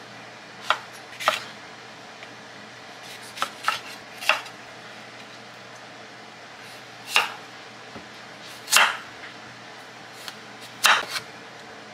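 Chef's knife slicing zucchini, bell pepper and carrot on a wooden cutting board: about nine sharp knocks of the blade hitting the board, spaced unevenly.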